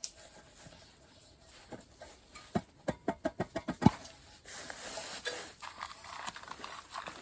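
Something being handled: a quick run of about eight sharp taps or clicks, then a rustle.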